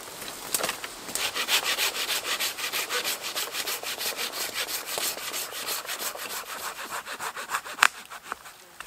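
Hand saw cutting through a dead branch with quick, even back-and-forth strokes, clearing a trail. It stops just before the end, followed by one sharp knock.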